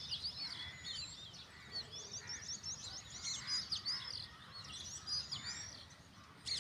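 Small birds chirping: many short, quick high calls overlapping throughout, over a faint low background noise, with a brief click near the end.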